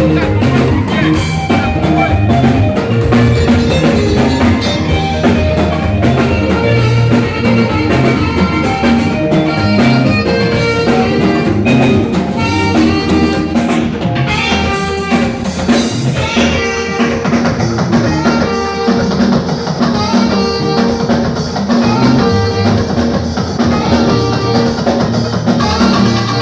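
Live band playing: drum kit with rimshots under held melodic notes, with a saxophone among the instruments. The cymbals drop out about two-thirds of the way through while the band plays on.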